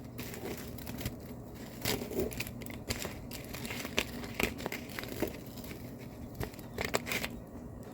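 Crisp fried mini tortilla shells being rough-chopped, giving irregular crunching and crackling snaps.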